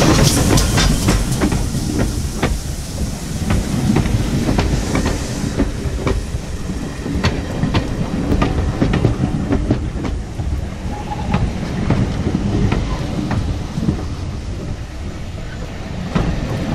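GWR 4500 class prairie tank engine 4555 passing close by, its steam hiss fading over the first few seconds, then its coaches rolling past with the wheels clicking over the rail joints.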